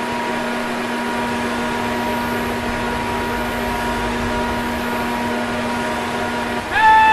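A small electric blower running steadily with a rushing noise and a steady hum, cutting off near the end. Just after, a loud honking tone begins.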